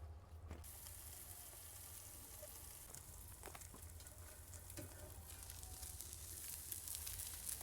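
Oiled, spiced carp sizzling in its fat on a hot saç iron griddle over a fire: a steady frying hiss with scattered small crackles and pops. It comes in about half a second in and grows a little louder toward the end.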